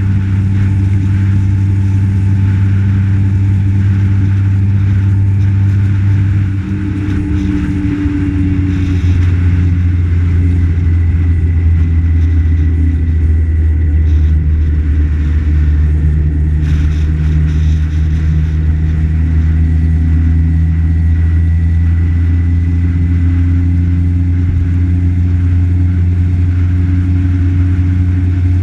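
A road vehicle's engine running steadily at road speed, recorded on board, with tyre and wind noise. About seven seconds in, the level dips briefly and the engine note shifts.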